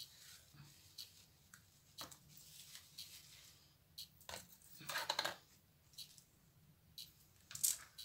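Faint clicks and taps of small plastic mixing cups and glitter vials being handled on a cutting mat, with a brief louder rustle about five seconds in.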